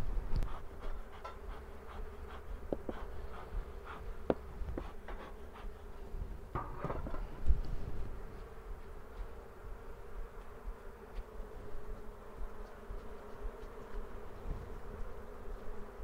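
Honeybees buzzing steadily around an open hive, a sustained hum from a colony that is upset at being worked. In the first half, light taps and scrapes of a bee brush and handling on the comb.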